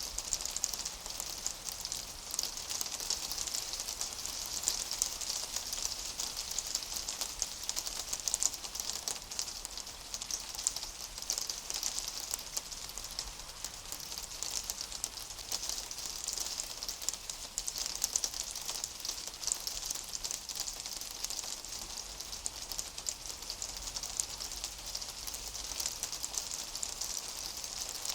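Ice rain falling on a rooftop: a dense, steady hiss of countless tiny ticks, brightest in the high range.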